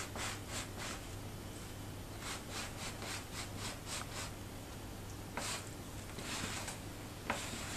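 Plastic laundry basket scraping on wooden floorboards as it is pushed along in short strokes: a quick run of about seven in the middle, then a few more spaced out near the end.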